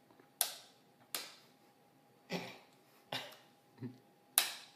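A bump hammer striking a homemade bump key in a Master padlock, six sharp taps at uneven intervals, each with a brief ring.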